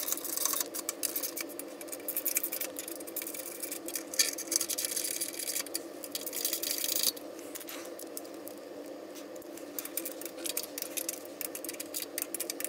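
Hand ratchet clicking in quick runs as the bolts of a tractor transmission's PTO support housing are run down. The clicking is dense for about seven seconds, then sparser, over a steady low hum.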